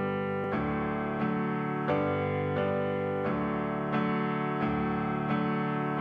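Piano-toned keyboard playing slow, sustained chords, a new chord or note struck about every two-thirds of a second: the instrumental introduction to a sung prayer, before any voice comes in.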